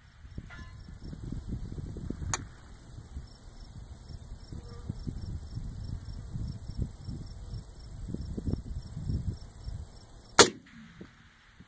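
A single AR-10 rifle shot about ten seconds in, sharp and loud with a short echoing tail. Just after the start a faint metallic ring of the steel target at 500 yards being hit by the previous shot, and a sharp click about two seconds in; wind buffets the microphone and a steady high insect chirring runs underneath.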